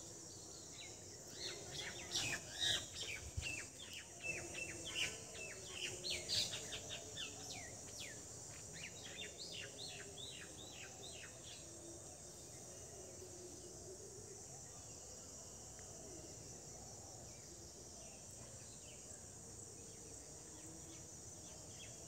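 Small birds chirping in quick runs of short, falling notes, busiest in the first half, over a steady high-pitched insect chorus.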